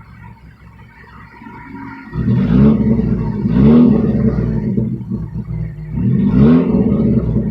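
Straight-piped Chevy Cavalier engine, running with no exhaust: a low idle rumble, then revved hard about two seconds in. The pitch climbs twice in quick succession and once more near the end.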